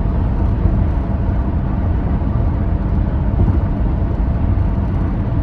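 Steady low rumble of vehicle road noise.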